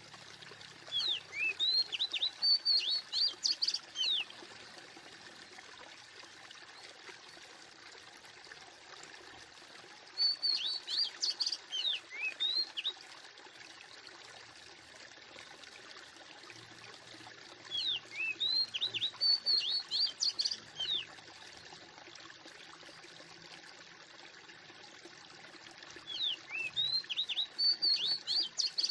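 Bursts of rapid, high bird chirps, each about three seconds long, come back about every eight seconds in much the same pattern, over a steady hiss like flowing water.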